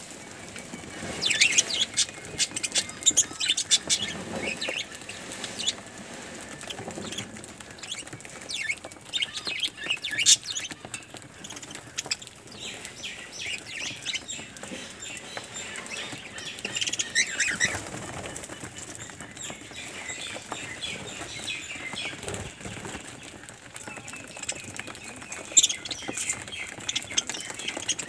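A flock of budgerigars chattering with many quick, high chirps, with wings fluttering now and then.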